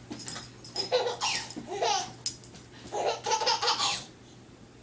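Baby laughing hard in repeated bursts, two runs of laughter with a short break between them.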